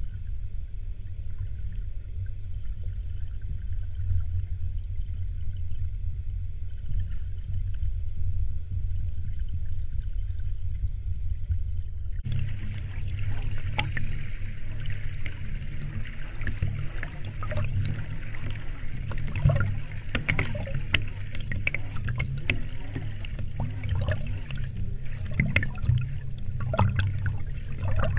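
Flowing stream water heard muffled through a submerged camera: a steady low rumble. About twelve seconds in it changes to a brighter rushing with many small clicks and ticks.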